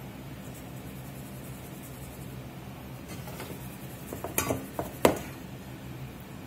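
Stainless steel mixing bowl clanking as it is moved across the cutting board: a few sharp metallic knocks with a short ring, about four to five seconds in, the loudest just after five seconds. A steady low hum runs underneath.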